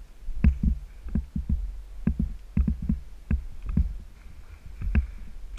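Footsteps of someone moving quickly across a concrete floor strewn with rubble: a run of irregular low thuds, often paired, some with a light scraping click.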